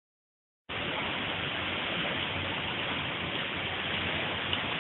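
Water from a burst water main jetting high into the air under pressure and splashing down, a steady rushing hiss that cuts in suddenly under a second in.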